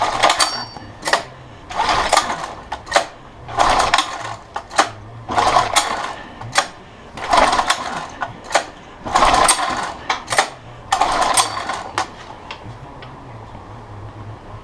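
Recoil pull-starter of a 1983 Honda B100 10 hp outboard motor, choked, being pulled seven times at a steady pace, each pull a short whir of under a second as the engine turns over. The engine does not catch and run between pulls.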